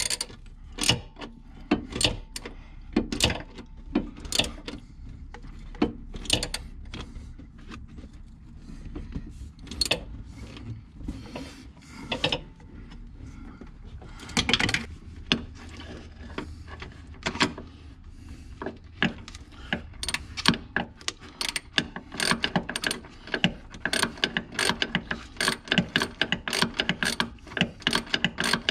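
Hand ratchet wrench clicking as the rear shock's mounting bolts are run in and tightened. It clicks in scattered single strokes and short runs at first, then in a fast, steady run of clicks for the last several seconds.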